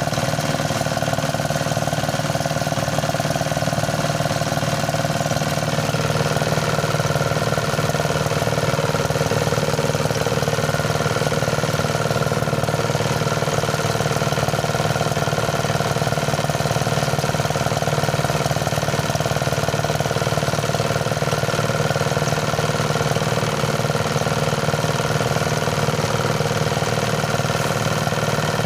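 Engine-driven rice thresher running steadily.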